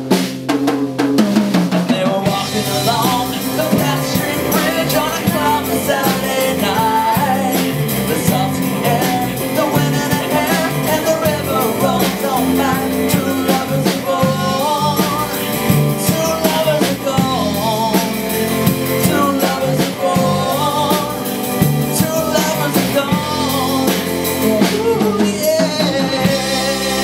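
Live band playing a song: drum kit, electric and acoustic guitars and electric bass, with singing.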